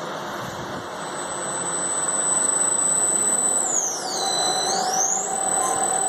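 Whirler 15 kg industrial washer-extractor running, a steady machine noise that grows louder about two seconds in. A high whine dips in pitch and climbs back past the middle, and a steadier mid tone joins it.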